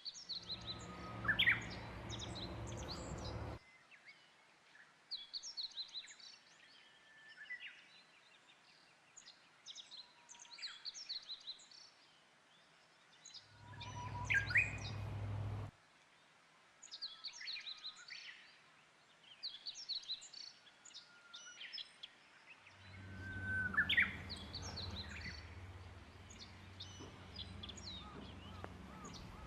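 Japanese bush warbler (Horornis diphone) singing its hō-hokekyo song three times, about ten seconds apart, each phrase sweeping sharply in pitch at its end. A low rumble comes with each phrase, and short high chirps of other small birds run between them.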